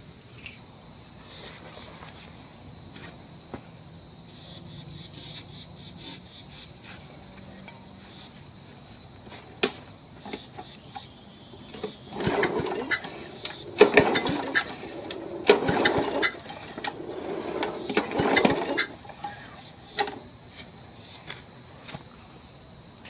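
Crickets chirring steadily. About halfway in, a push lawn mower's recoil starter cord is yanked several times in quick succession; the engine cranks but does not fire, even on a shot of carb cleaner sprayed into the intake.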